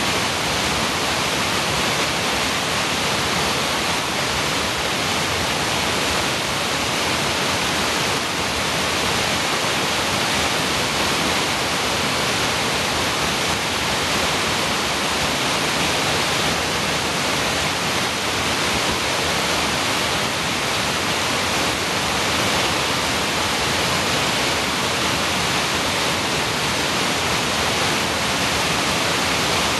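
Creek waterfall tumbling over rocks and logs: a steady, unbroken rush of falling water, heavy in hiss.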